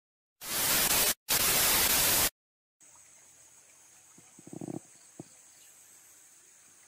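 Two loud bursts of static-like hiss, together about two seconds long with a brief break between them, as the intro ends. Then a faint outdoor background with a steady high-pitched drone and a few soft small sounds.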